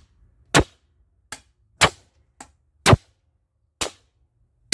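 Repeated sharp blows on the iron bearing housing of a washing machine's drum base, driving out a tight, seized drum bearing. There are six strikes, spaced irregularly about half a second to a second apart, two of them lighter.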